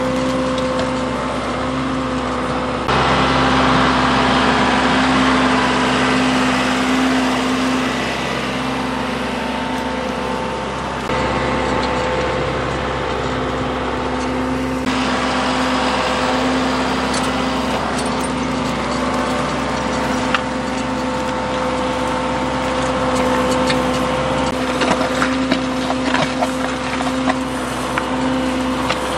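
Diesel engine of a John Deere tractor running at a steady speed under load while it pulls a moldboard plow through sod. Short cracks and clatter of clods breaking off the plow come through in the later part.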